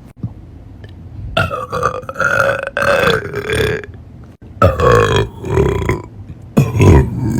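A person burping loudly: three long, drawn-out burps with a wavering pitch, the first starting about a second and a half in.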